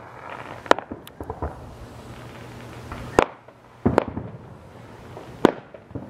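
Aerial firework shells bursting: several sharp bangs at uneven gaps, the strongest about a second, three, four and five and a half seconds in, with smaller pops and crackle between.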